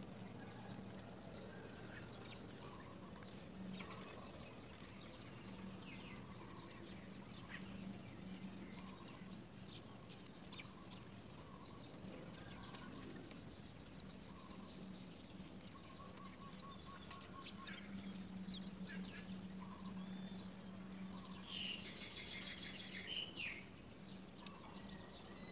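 Faint scattered bird chirps and calls, with a short trill about two-thirds through and a harsh chattering burst near the end, over a low hum that comes and goes.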